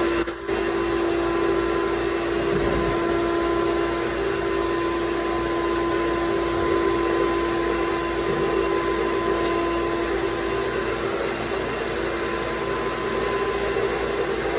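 An electric blower motor, of the vacuum or air-dryer kind, running steadily with a constant hum and whine.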